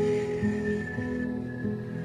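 Recorded slow meditative music: plucked string notes, one roughly every half second or so, each ringing out, over a faint held high tone.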